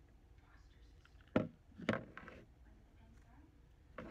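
Handling knocks of a small hot glue gun and a pen part: two sharp knocks about a second and a half apart, then a louder clatter near the end as the glue gun is set down on a wooden tabletop.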